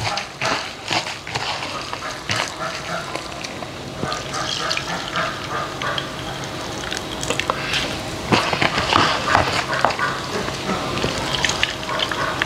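Wet grated coconut kneaded by hand in a bowl, then squeezed in fistfuls so that coconut milk splashes and trickles through a mesh strainer into a pot.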